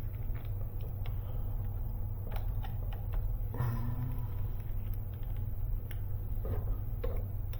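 Faint scattered clicks and light handling of small metal hardware and tools over a steady low hum.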